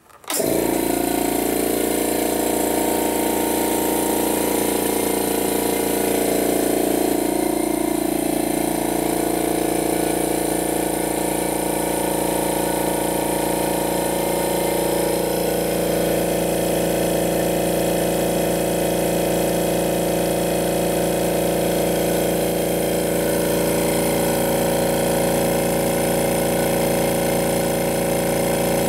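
Quiet Zone EWS24 silent oil-free air compressor (750 W motor, 24 L tank) switched on: it starts abruptly just after the switch is pressed and then runs with a steady hum.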